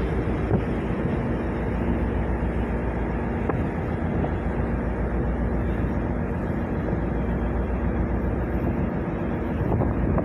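Steady low rumble of a ship's engines, with wind buffeting the microphone.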